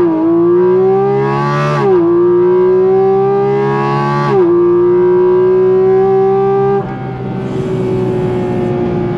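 A Porsche Cayman GT4 RS's naturally aspirated 4.0-litre flat-six accelerating hard at full throttle, heard from inside the cabin. Its pitch climbs through each gear, with quick PDK upshifts about two and four and a half seconds in. Near seven seconds the throttle is lifted and the engine drops back to a quieter cruise.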